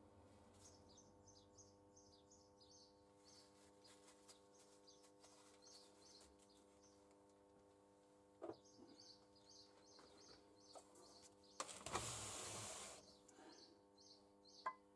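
Near silence at a workbench: a steady electrical hum and faint, repeated high chirps. These are broken by a light metal clink a little past halfway, a scraping rustle of about a second around three-quarters through, and another clink at the end, as the aluminium crankcase half is handled and fitted over the flywheel assembly.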